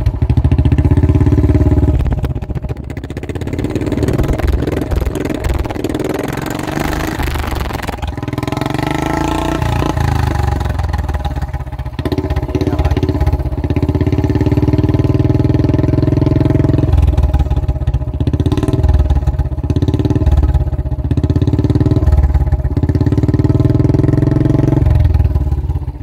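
Royal Enfield Bullet 350 Standard's single-cylinder engine running through a long-bottle 'Bada Punjab' aftermarket silencer, a deep even exhaust beat that swells and eases several times as the throttle is opened and closed.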